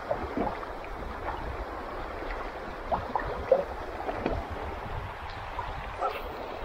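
Water splashing in short, irregular strokes around an inflatable boat as it is paddled along the river, the loudest splash about halfway through. Underneath are a steady rush of water and wind rumble on the microphone.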